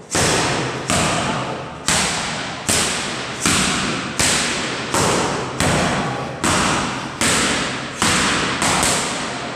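Boxing gloves smacking into focus mitts, about a dozen sharp hits at a steady pace of roughly one every 0.8 seconds, each ringing out in the hard, echoing room.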